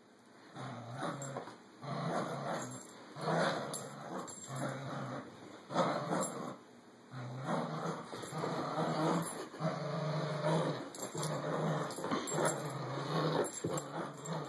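Dogs growling in play as they tug on a toy together: a long run of low growls, each lasting about a second, with short breaks between.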